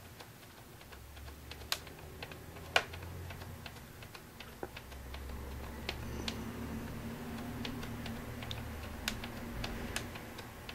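Scattered small clicks of fingers working the plastic time-set buttons on top of a 1984 Emerson RC5806 clock radio while the alarm time is stepped forward. Two sharper clicks stand out about two and three seconds in, over a faint low hum.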